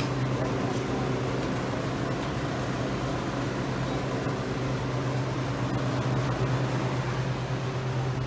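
Steady low machine hum under an even hiss of moving air, like running refrigeration or ventilation equipment.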